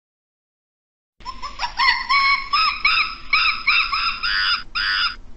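Monkey cries: a fast run of high squealing calls, each rising and falling in pitch, about three or four a second, starting abruptly after silence.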